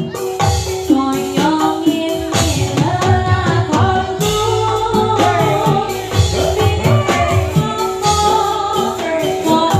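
Live Javanese jathilan dance music: singing over a gamelan-style ensemble, with steady drum strokes and a held tone running under the voice.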